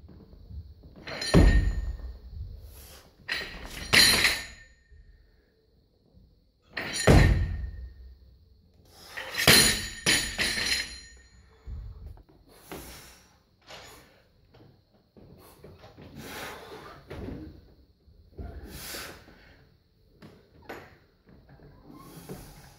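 Loaded Olympic barbell with bumper plates dropped onto the gym floor, each drop a heavy thud with the plates and bar clanging. There are four loud drops in the first ten seconds, then a run of quieter knocks and clinks of bar and plates.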